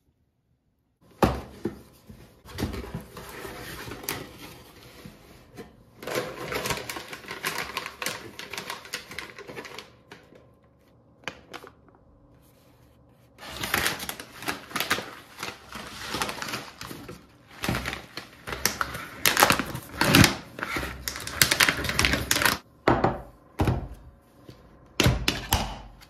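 A cardboard box being unpacked by hand: cardboard flaps and a plastic granola packet rustle and crinkle amid rapid clicks and knocks. There is a pause of about three seconds midway.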